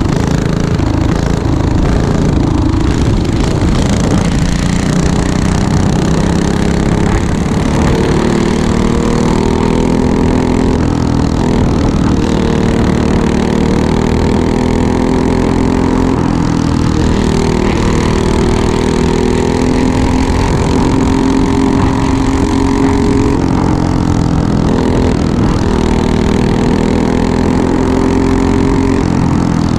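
Racing go-kart engine heard from on board, running hard at speed. Its pitch rises and falls gently as the kart goes through the laps, over a steady rushing noise.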